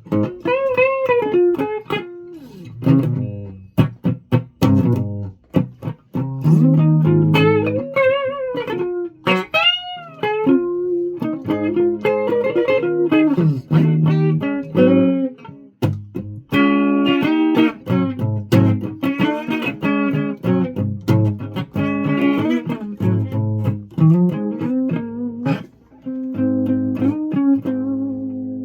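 Guitar being played: a run of picked notes and chords, many bent up and down in pitch, over held low notes, with short breaks between phrases.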